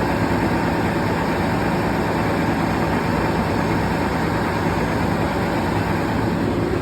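A heavy engine running steadily at constant speed, with no change in pitch or level.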